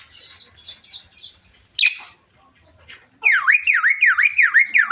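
Javan myna calling: scattered chirps and a sharp call, then, a little past halfway, a loud run of repeated swooping whistles, about four a second.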